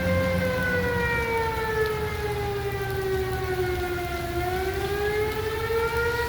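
Outdoor tornado warning siren wailing: one long tone that slowly falls in pitch, then rises again about four seconds in.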